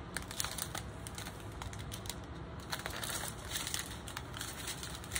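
Small plastic bags of diamond-painting drills being handled: crinkling plastic with many small, irregular clicks.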